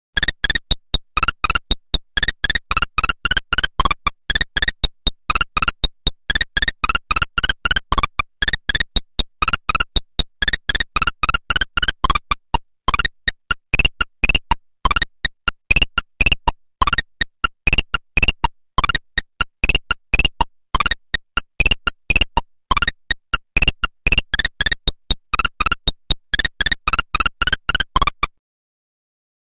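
Nokia 1100 ringtone: a quick monophonic tune of short, separate electronic beeps, which stops suddenly shortly before the end, followed by silence.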